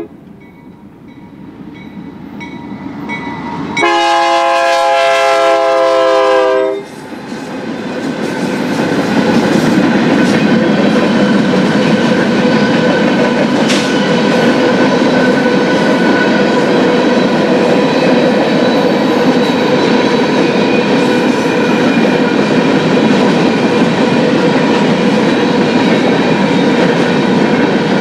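BNSF freight train approaching, growing louder, its locomotive's air horn sounding a chord of several tones for about three seconds. The train then passes with a loud, steady noise that lasts to the end.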